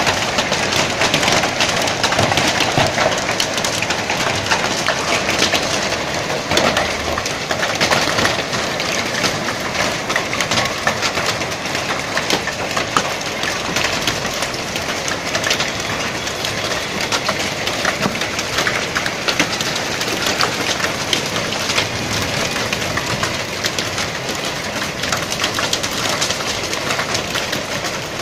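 Heavy rain falling on corrugated metal sheet roofs: a steady, dense patter of many small drop impacts.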